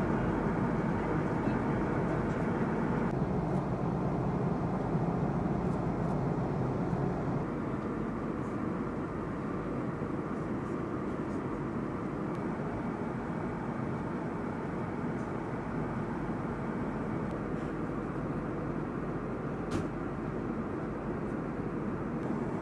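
Steady noise of aircraft in flight, engine and rushing air, with no distinct events. It thins out in the upper range about three seconds in and drops a little in level a few seconds later.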